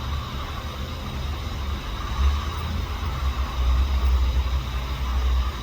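Hot air rework station set to 360 degrees and airflow speed 40, blowing steadily to melt the solder under a new USB-C charging port, with a low rumble that swells about two seconds in and again near the end.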